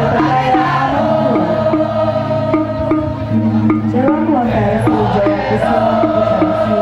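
Balinese gamelan music with girls singing a chant-like melody over steady held tones. The melody is punctuated by a regular beat of sharp metallic strikes, about two a second.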